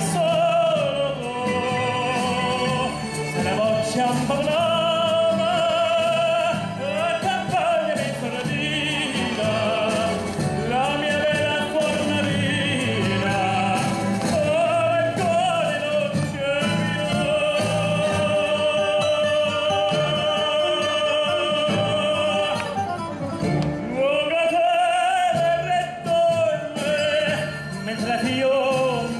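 Male tenor singing an Italian ballad into a microphone over amplified instrumental accompaniment, with one long held note of about eight seconds in the middle.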